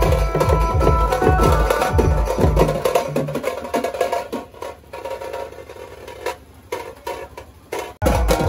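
Loud dance music with a heavy, pounding beat and a melody over it. After about three seconds the beat drops out and it goes quieter and thinner. Near the end it cuts abruptly to a street drum band of large stick-beaten drums and snare drums playing hard.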